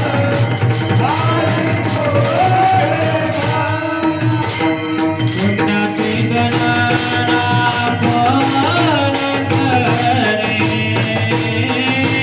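A male voice sings a slow, gliding devotional melody over a pakhawaj drum, with metallic jingling percussion keeping a steady beat.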